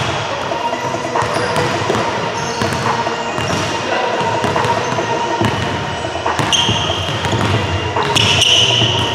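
Gym ambience: basketballs bouncing on the court amid crowd chatter, with two short high squeals in the last few seconds.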